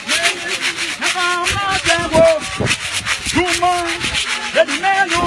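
Women's choir singing, several voices holding and sliding long notes, over a steady rasping rhythm of about five beats a second.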